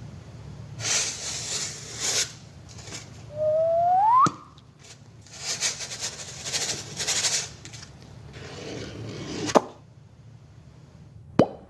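A string of made sound effects: two long bursts of hissing noise, a short rising whistle that ends in a sharp click about four seconds in, and single sharp clicks about nine and a half and eleven and a half seconds in.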